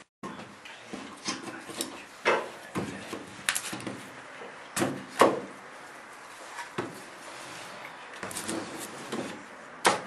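Irregular knocks and clatter of architectural model building pieces being handled, moved and set in place, about half a dozen sharper knocks spread through.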